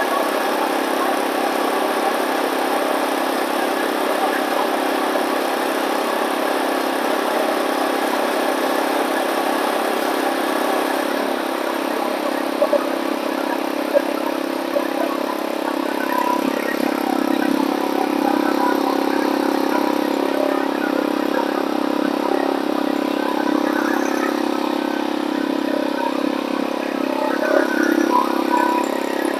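McLane reel mower running steadily on its swapped-in Harbor Freight Predator engine.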